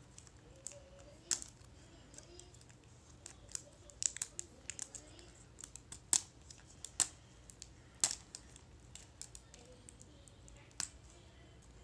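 Irregular sharp clicks and snips of plastic wrapping on a toy surprise ball being picked and pried at by hand, thickest around the middle.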